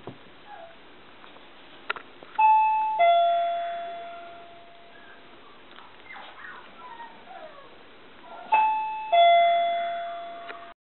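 A two-tone doorbell chime, ding-dong, sounding twice: each time a higher ringing tone is followed about half a second later by a lower one that rings out slowly.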